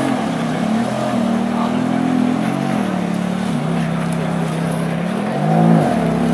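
Ferrari F430 Spider's 4.3-litre V8 running at low speed while manoeuvring. It idles with a brief throttle blip about two and a half seconds in that settles to a lower idle, then a short, louder rev that rises and falls near the end.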